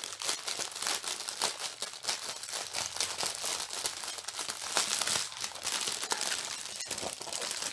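A strip of small plastic bags of square diamond painting drills crinkling as it is handled, a continuous run of quick crackles.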